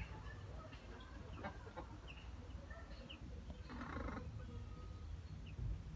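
Baby chicks giving a few short, faint peeps, with a brief scratchy burst about four seconds in, over a low steady rumble.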